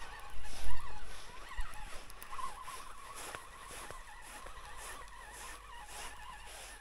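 Fishing reel being wound in, a wavering whine with faint regular ticks about twice a second. Wind buffets the microphone with a loud gust about a second in.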